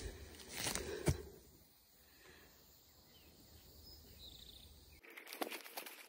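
Footsteps crunching on dry mulched brush along a trail, with a couple of strong steps in the first second, then a quieter stretch with a few faint bird chirps; louder rustling starts near the end.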